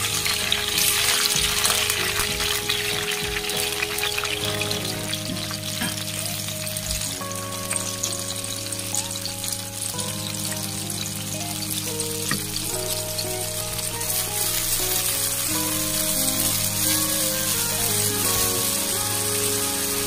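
Garlic frying in a pan of hot oil, sizzling loudly as dark sauce is poured in, then bubbling and spitting as the sauce boils in the oil and is stirred with a wooden spatula. Background music with steady stepped notes plays throughout.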